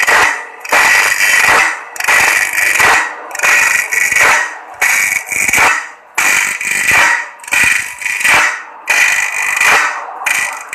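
Homemade automatic sharpener grinding a sawmill band-saw blade: the grinding wheel rasps against a tooth about once a second, with short breaks between strokes as the blade is moved on to the next tooth.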